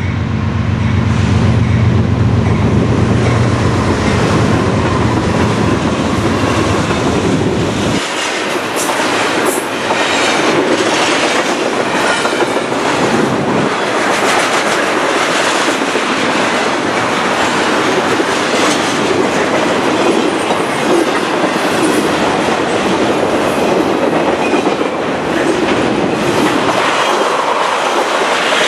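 Diesel freight locomotives pass close by with a deep, steady engine drone. About eight seconds in, the engine sound drops away and the double-stack container cars roll past: continuous steel-wheel-on-rail noise with rhythmic clickety-clack over the rail joints.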